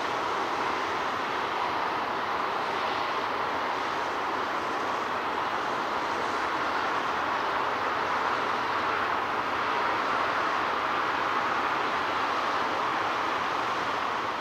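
Distant jet engine noise from a Boeing 747-8F's four GEnx turbofans as the jumbo jet rolls away down the runway: a steady rushing sound that swells slightly about ten seconds in.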